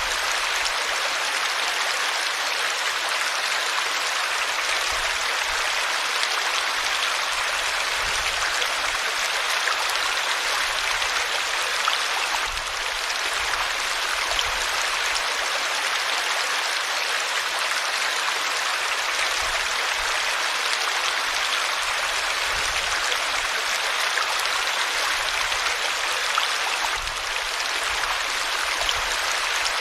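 River water flowing steadily over rocks, a continuous dense rushing with fine splashing texture and no pauses.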